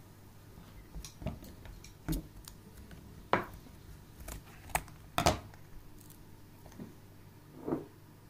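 Scissors snipping open the corner of a small paper drink carton: a handful of separate sharp clicks and snips, the loudest about three and five seconds in, with light knocks of handling on a table.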